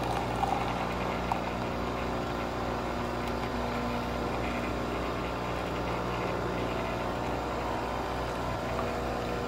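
Nespresso Vertuo capsule coffee machine brewing, a steady even mechanical hum of the machine spinning the capsule and pumping as coffee streams out.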